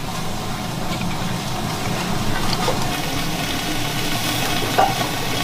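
Wok stir-frying over a steady low rumble from the stove, with a few light knocks of the spatula against the pan.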